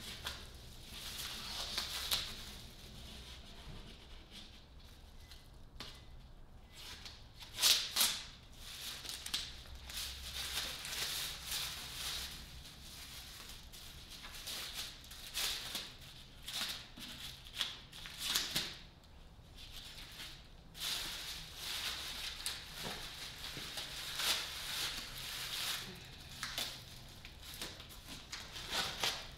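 Thin plastic sheeting and painter's tape being peeled off a chair seat and bunched up by hand: irregular crinkling and rustling with short tearing rasps, the sharpest of them about eight seconds in.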